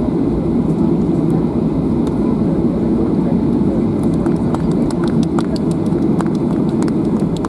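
Inside the cabin of a Boeing 737-800 taxiing: a steady low rumble from the jet engines running at taxi power and the air-conditioning. From about four seconds in there is a scatter of light clicks.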